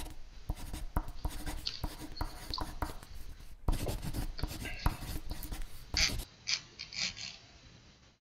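Pencil writing and scratching on paper in quick strokes. The strokes stop about six seconds in, with a few fainter ones after.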